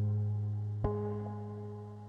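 Slow ambient relaxation music: sustained low chords fading away, with a new chord struck about a second in.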